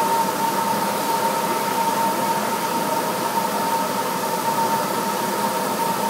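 Shop vac running steadily with a constant whine over a rushing hiss, its hose sucking drain water out of a commercial dish machine's tank in place of the broken drain solenoid.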